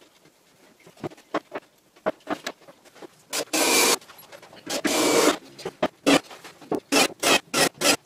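Plywood parts being handled and fitted into a plywood cabinet: scattered light wooden knocks, two longer scraping rubs of wood on wood in the middle, then a quick run of short rubbing strokes near the end.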